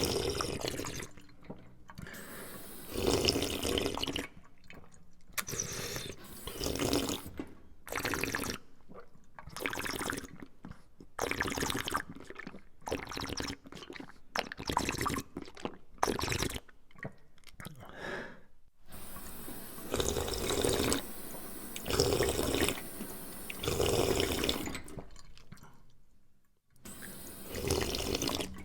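A person drinking: repeated gulps and swallows of liquid, one every second or two, with a brief pause near the end.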